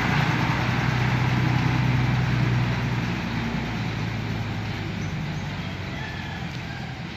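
Mercedes-Benz 917 truck's diesel engine running as the truck drives off, a steady low drone that gradually fades after about three seconds as it moves away.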